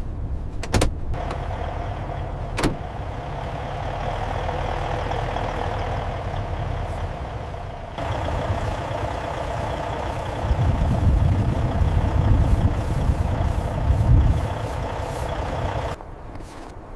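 Peterbilt truck's engine running steadily, a low rumble with a hum over it, with two sharp clicks in the first few seconds and heavier rumbling in the second half. The sound changes abruptly twice, about halfway and near the end.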